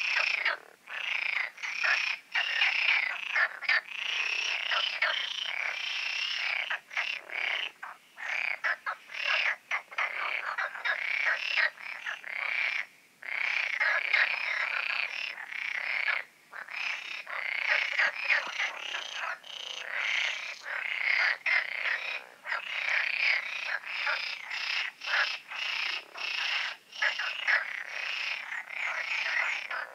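Dense chorus of many pond frogs calling together, a continuous mass of croaking broken by short gaps.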